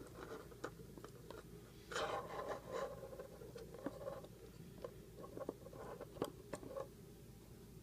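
Faint scattered clicks and a brief rustling scrape about two seconds in: small wires and parts handled while a power supply is plugged into a hand-soldered LED flasher circuit. No tone comes from the circuit's speaker, because wiring it to both LEDs has not worked.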